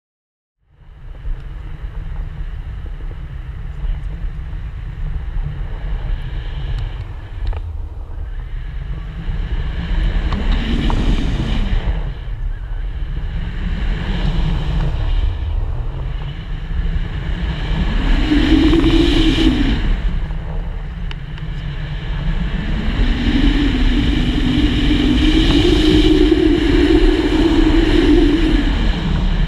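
Wind rushing over the microphone in flight, a heavy low buffeting with a whistling tone that rises and falls several times.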